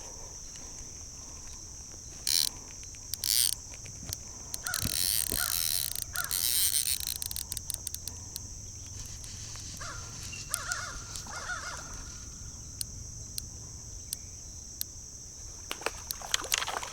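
Outdoor ambience with a steady high insect drone and crow calls. About two and three seconds in come two brief rushes of noise, then a louder rushing noise lasting about two seconds.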